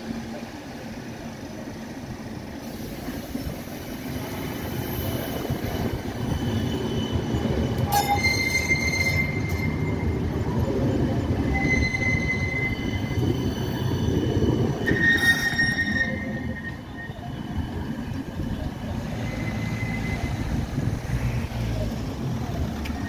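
A CAF Urbos 3 light-rail tram pulling away and passing close by, its running noise swelling and then easing off. High-pitched wheel squeal comes and goes from about eight seconds in until about twenty seconds.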